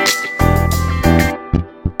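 Background music with sustained bass notes and a pause near the end, then the beat comes back in.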